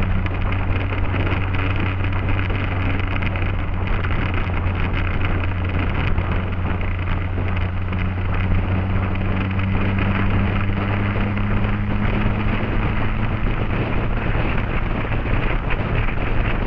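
Motorcycle engine running steadily at cruising speed, its note rising slightly in the middle, with wind rushing over the microphone.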